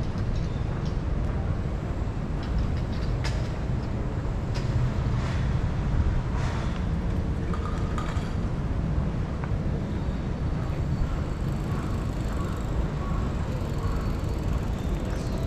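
City street ambience: a steady low rumble of traffic, with scattered sharp clicks and knocks.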